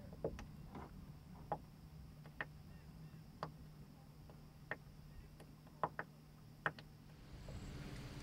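Faint, irregular ticks and knocks, about one a second, from small waves slapping the hull of a small boat, over a low steady hum. Near the end the background noise grows louder.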